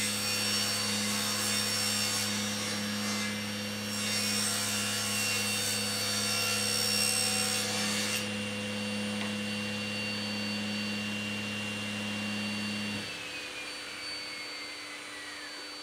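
Laguna Fusion 3 cabinet saw running, its blade finishing a rip through a thin strip of wood, with a steady hum under a hiss that stops abruptly about eight seconds in. About thirteen seconds in the saw is switched off: the hum cuts out at once and the blade's whine falls steadily in pitch as it coasts down.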